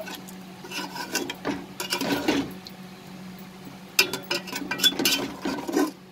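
Metal spatula stirring a wet chicken and potato curry in a metal pot, scraping and clinking against the pot in bursts, with a short lull in the middle.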